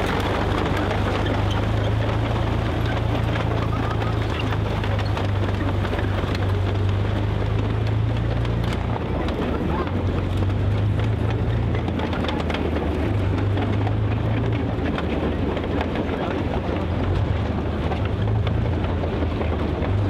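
Tiger II (King Tiger) tank driving away over dirt, its Maybach HL 230 V-12 petrol engine running with a steady deep drone that swells and eases.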